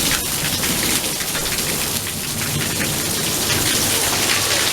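Heavy downpour of rain, a steady dense hiss of water pouring onto pavement and roofs during a thunderstorm.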